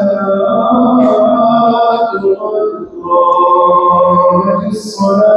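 The imam's voice chanting over the mosque's loudspeakers during congregational prayer: a single male voice in long, held, melodic phrases with brief pauses between them.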